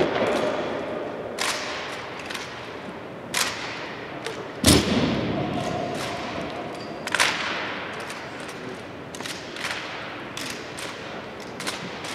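Drill team's M1903 Springfield rifles being handled in exhibition drill: a string of sharp slaps and cracks from hands striking the rifles, rifle butts and boot heels hitting the hard floor, with lighter marching steps between. Each strike echoes in a large hall, and the loudest comes a little under five seconds in.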